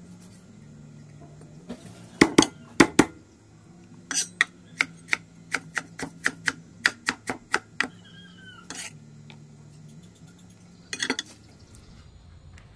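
A large kitchen knife chopping ginger on a thick wooden chopping board. A few heavy knocks come about two seconds in, then a steady run of chops at about two or three a second, and a short burst of knocks near the end.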